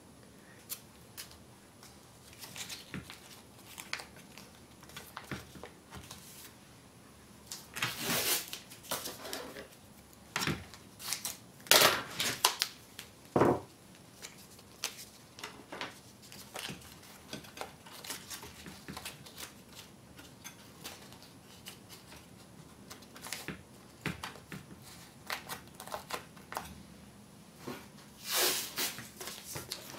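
Blue masking tape being cut with scissors and pressed onto a metal radio panel: intermittent snips, tape rustling and crinkling, and small clicks, with several louder bursts in the middle and one near the end.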